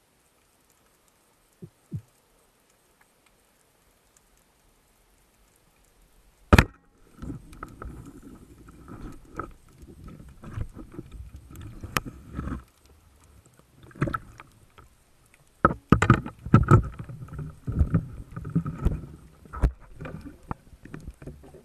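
Speargun firing underwater with one sharp, loud crack about six and a half seconds in. It is followed by irregular knocks, scraping and low rumbling as the speared fish struggles against the gun, heard through the camera's underwater housing.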